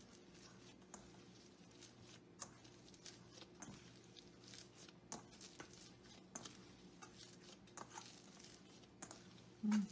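Hands kneading soft, oiled sweet-potato dough in a stainless steel bowl: faint squishing and sticky tearing with occasional light taps against the bowl, over a steady low hum.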